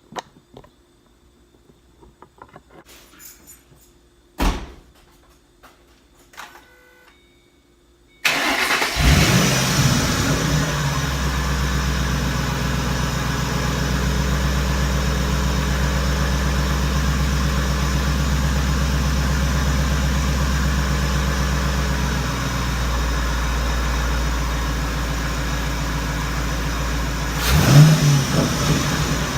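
A few faint clicks and one knock, then about eight seconds in the 2006 Mustang GT's 4.6-litre V8 starts, flares and settles into a steady idle, breathing through a newly fitted JLT Series 3 cold air intake. A short rev comes near the end.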